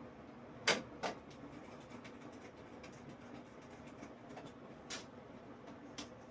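Small metal clicks and taps of PC-building hardware being handled: motherboard screws tried against the case's standoffs. Two sharp clicks a little under a second in, then a few fainter ones.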